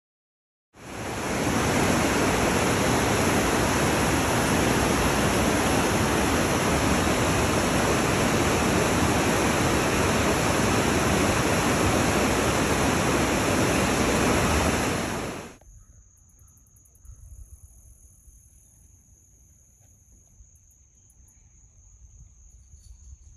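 River rapids: water rushing over and around rocks as a loud, steady roar that starts suddenly just after the beginning and cuts off sharply about fifteen seconds in. After that only a faint outdoor background remains, with a thin steady high-pitched tone.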